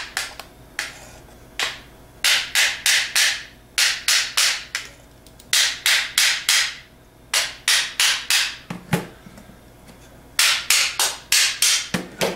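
Ball-peen hammer tapping the rotor shaft of a DR44G alternator, driving the rotor out of the stator and rear housing. The taps come in quick runs of four to six sharp strikes, with short pauses between the runs.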